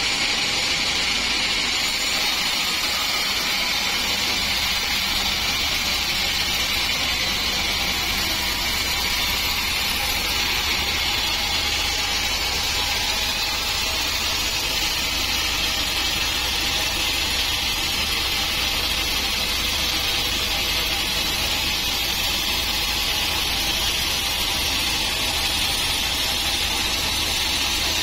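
Band sawmill's blade cutting lengthwise through a teak log, a steady hiss.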